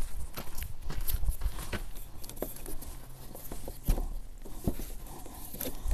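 Scattered light clicks, rustles and shuffling of hands and feet moving around and handling parts, with no engine running.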